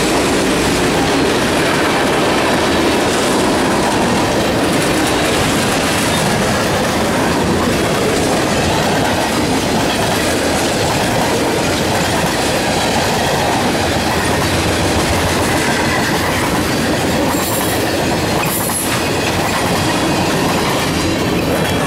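Freight cars rolling past close by: a steady rumble and clickety-clack of steel wheels over the rail joints. A couple of brief, sharper high noises come about three-quarters of the way through.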